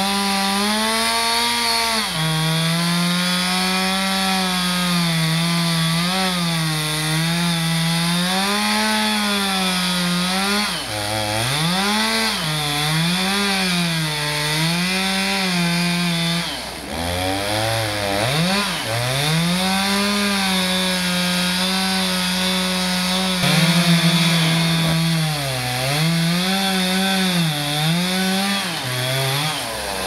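Two-stroke chainsaw cutting through the base of a big dead pine tree, its engine pitch wavering as the chain bogs under load and picks up again. About eleven seconds in, and again about seventeen, it drops almost to idle before revving back up into the cut.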